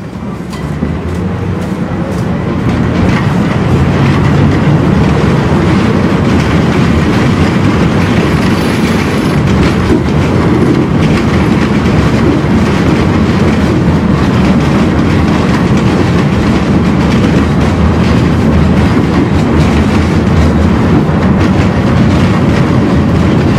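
Tram running on its rails, heard from inside the car, with the clatter of its wheels over the rail joints. It grows louder over the first few seconds, then runs steadily.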